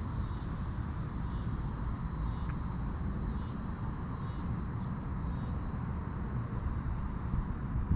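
Wind buffeting the microphone outdoors, a steady low rumble, with a faint high chirp repeating about once a second.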